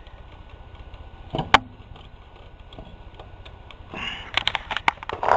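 A plastic wire plug being worked loose from a garage door opener's motor drive board. There is a sharp click about a second and a half in, then a run of rattling clicks near the end.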